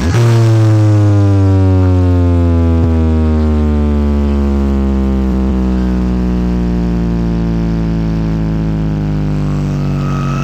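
A large carnival sound system with stacked subwoofers playing a loud, deep synthesized tone with heavy bass. Its pitch slides slowly and steadily downward for about ten seconds.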